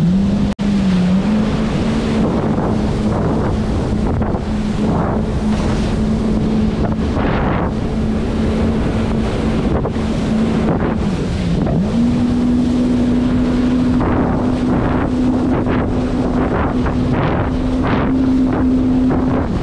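Jet ski engine running at a steady cruising pitch, with wind buffeting the microphone and water spray hissing. The engine note dips briefly near the start and again just past the middle as the throttle eases, then settles a little higher.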